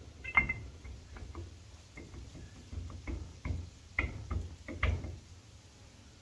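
Scattered light metal clicks and knocks, the sharpest near the start, as the ring gear and its bolts are lined up on a Nissan C200 differential carrier by hand.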